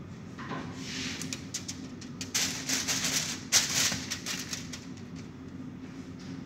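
Aluminium foil crinkling and rustling as a raw salmon fillet is handled and laid onto a foil-lined baking tray, with a sharper crackle about three and a half seconds in. A steady low hum runs underneath.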